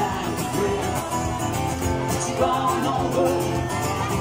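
A man singing live to his own acoustic guitar, strumming chords under a steady sung melody.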